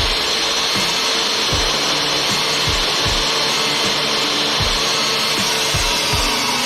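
An electric woodworking power tool running steadily with a high motor whine, over background music with a steady thumping beat.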